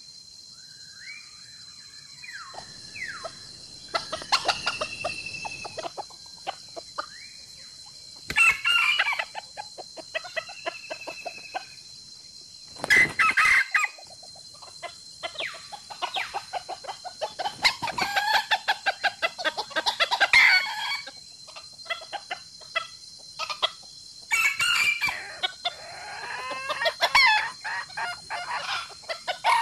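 Chickens clucking in repeated loud bouts, with a rooster crowing.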